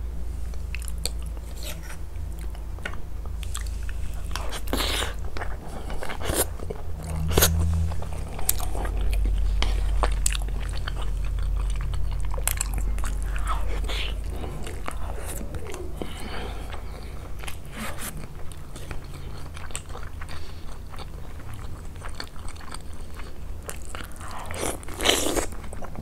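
A person eating chicken mansaf, chewing and biting close to the microphone, with irregular sharp mouth clicks; the loudest comes near the end.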